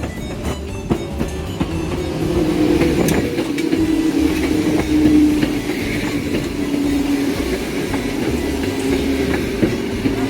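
Hakone Tozan Railway electric train running on the track: a steady hum that sinks slightly in pitch, over a low rumble, with a few clicks of the wheels on the rails in the first couple of seconds.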